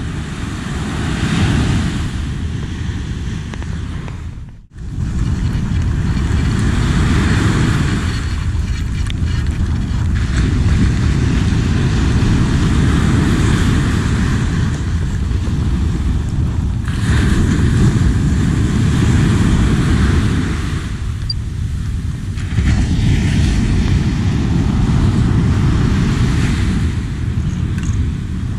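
Wind buffeting the camera microphone with a steady low rumble, over surf washing onto a sandy beach. The sound cuts out briefly about five seconds in.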